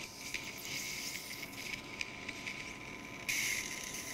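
Surgical suction tip hissing in the ear canal, crackling as it draws up fluid and blood; the hiss gets louder about three seconds in.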